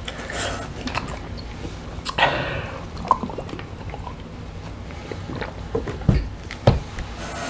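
A large plastic water jug lifted and drunk from, with water sloshing inside, then set back down with two dull thumps near the end.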